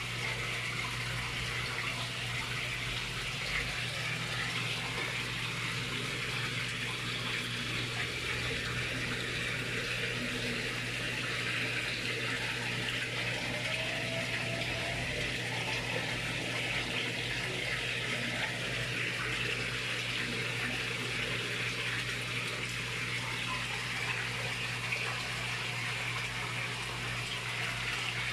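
Steady rush of running water in a fish pond, with a steady low hum under it.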